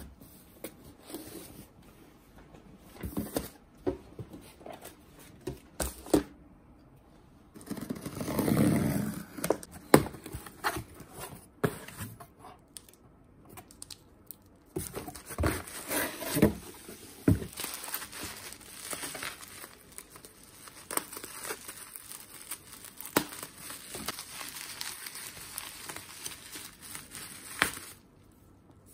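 A cardboard parcel being unboxed by hand: packing tape torn off, cardboard flaps handled, and plastic bubble wrap and packets crinkling, with scattered taps and knocks. A longer tearing rush comes about eight seconds in.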